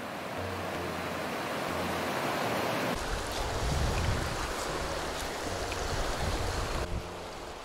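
Rushing river water, a steady hiss, with a low rumble joining about three seconds in and fading near the end.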